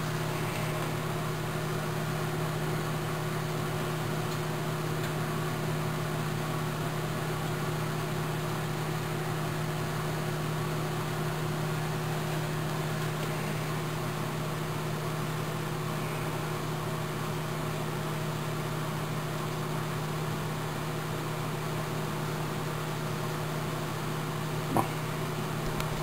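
Microwave oven running a heating cycle: a steady hum with fan noise. A single short click near the end.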